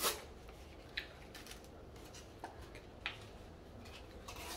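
Small plastic items being handled: a brief rustle, then a few light, sharp clicks spaced about a second apart.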